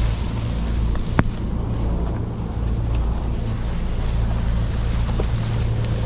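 Wind buffeting the microphone, a steady low rumble, with a single sharp click about a second in.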